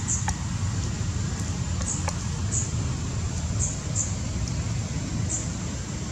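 Outdoor background noise: a steady low rumble with short, high chirps repeating every second or so, and a couple of faint clicks.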